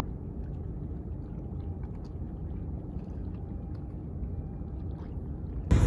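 Low steady rumble of open water at night, with faint lapping and small splashes, cut off abruptly near the end.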